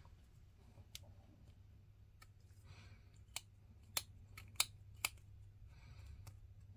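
Faint scraping of a hobby knife blade across a small plastic miniature part, cleaning it up, with a handful of sharp little clicks as the blade and part are handled.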